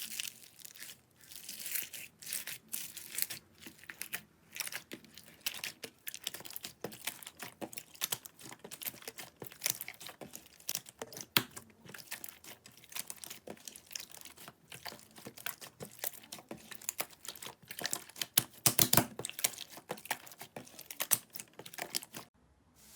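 Slime being squeezed and pressed by hand: a dense, irregular run of crackling and popping clicks, loudest in a cluster about nineteen seconds in.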